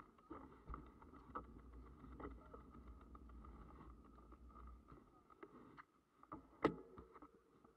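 Quiet mountain bike ride: a low rumble with many small rattles and clicks from the bike on the path, and one sharp knock about six and a half seconds in.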